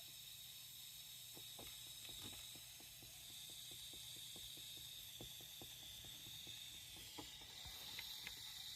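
Faint, irregular mechanical clicking from a homemade Morse code machine, several small clicks a second with gaps between, over a steady hiss and a thin high whine.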